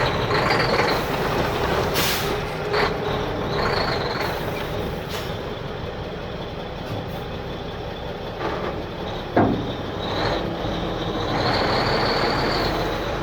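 Diesel dump truck engine running steadily, with several short bursts of air-brake hissing in the first few seconds and a high whine that comes and goes. A short, sharp squeal falling in pitch stands out about nine seconds in.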